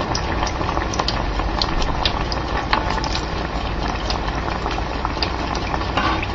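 Batter-coated Oreo cookies deep-frying in hot oil: a steady sizzle dotted with frequent small crackles and pops.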